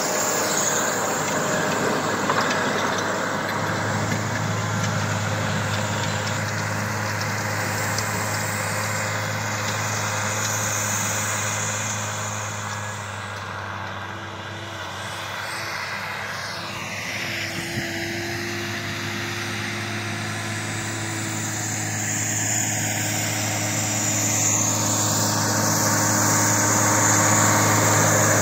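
John Deere tractor's diesel engine running steadily while pulling a disc harrow through soil. It grows fainter midway as the tractor works away and louder again near the end as it comes back.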